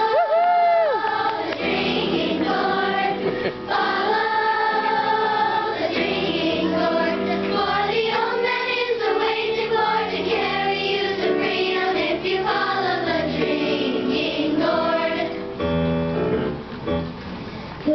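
Children's choir singing a song, many voices together at a steady level, easing off briefly near the end.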